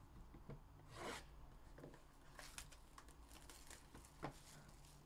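Faint sounds of a trading-card hobby box being opened by hand: a short tearing rasp about a second in, then light clicks and rustles of cardboard and plastic, and one sharp tap near the end.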